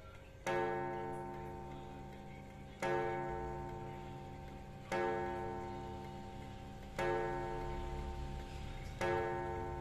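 Junghans mantel clock's eight-day movement striking the hour with its freshly adjusted striking hammer: five evenly spaced strikes, about two seconds apart, each ringing on and slowly fading into the next.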